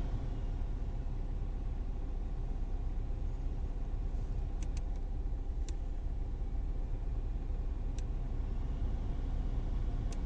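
Hyundai Solaris heater blower fan running steadily after being cleaned and greased, a continuous whir and hum with a few faint clicks; the owner finds it much better now.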